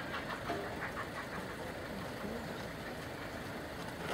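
Steam-hauled passenger train pulling away. A rhythmic beat fades out during the first second or so, leaving a steady low rumble as the train draws off.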